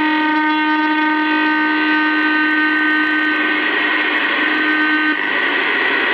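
Shortwave receiver tuned to the 10-metre band, putting out an unidentified interfering signal: several steady tones held at once over radio hiss. About five seconds in, the tones drop out and only the hiss remains.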